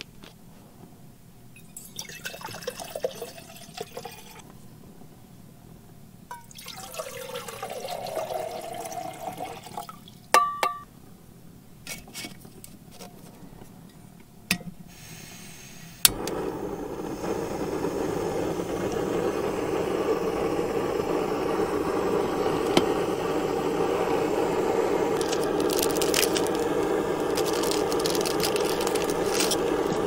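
Water poured from a bottle into a Jetboil cup, the pitch rising as it fills, with a few sharp clicks as the stove is put together. About halfway through the Jetboil gas burner is lit with a click and runs with a steady hiss, the loudest sound.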